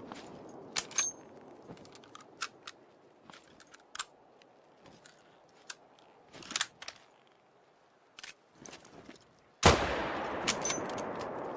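Mosin-Nagant bolt-action rifle sounds: an earlier shot's echo fades out, a scattering of light sharp metallic clicks and clacks follows over several seconds, then a single loud rifle shot near the end with a long echoing tail.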